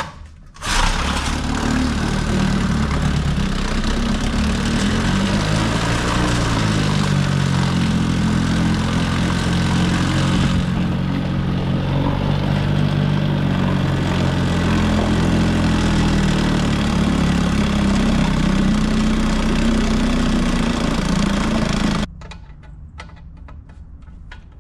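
1950s Evinrude 3 HP two-stroke outboard motor catching and starting about a second in, then running with its speed rising and falling, and cutting off suddenly near the end.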